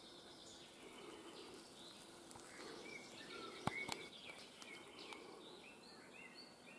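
Faint forest ambience with small birds chirping in short high calls scattered throughout. Two sharp clicks a bit past halfway are the loudest sounds.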